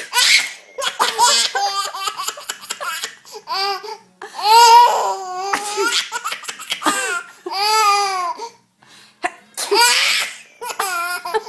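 Baby boy laughing in several fits of high giggles, each rising and falling in pitch, with short breathy bursts between them.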